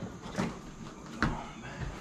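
Two sharp knocks about a second apart, then a few lighter clicks, as a dishwasher's metal frame is worked into its cabinet opening.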